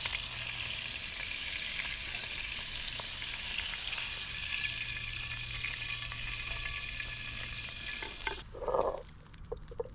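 Entrecôte steaks searing in clarified butter in a forged pan, a steady sizzle that cuts off suddenly about eight seconds in. A brief louder sound and a few light clicks follow.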